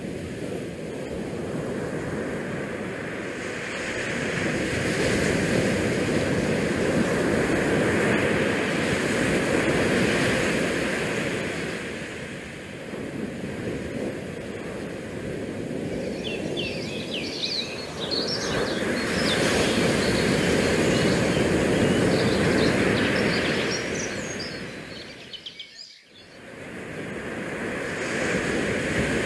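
Small bay waves washing up the concrete boat ramp and against the rocks, mixed with wind buffeting the microphone, swelling and easing. Brief high chirps come through in the second half, and the noise drops away for a moment near the end.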